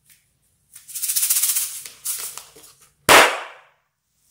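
Granular filling pouring out of a balloon onto a glass dish: a dense rattling patter for about two seconds. About three seconds in comes a single sudden, louder burst that dies away within half a second.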